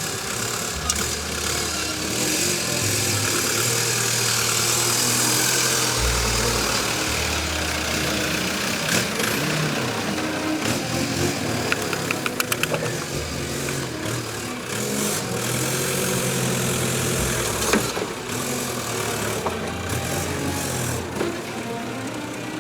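Off-road 4x4's engine running, its revs rising and falling unevenly over the whole stretch. A quick run of about eight ticks comes around the middle, and a single sharp knock a few seconds before the end.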